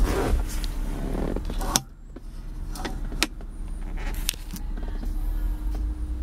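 Rustling and handling noise as someone moves about inside a car cabin with a handheld camera. A sharp click comes about two seconds in, then a few lighter clicks and creaks over a low rumble.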